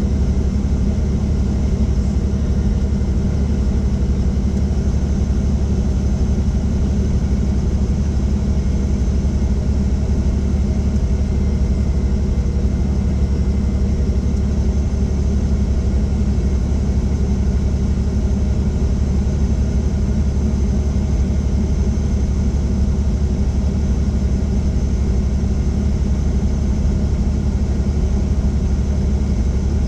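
Helicopter in flight: a steady, unchanging low drone of engine and rotors, with a faint high whine above it.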